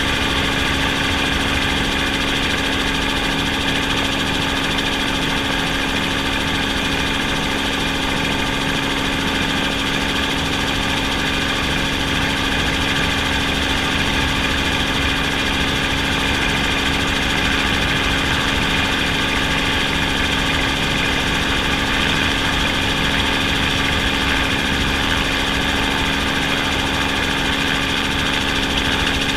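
Steady motor and rotor noise of the aircraft carrying the camera, an even hum with a high hiss that holds the same pitch without rising or falling.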